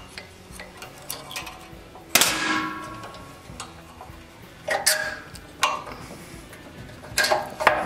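Small metal parts clicking and clinking as the spring and link are unhooked from a generator's carburetor linkage. A sharp metallic clank rings briefly about two seconds in, with a few more clicks around five seconds and a cluster near the end.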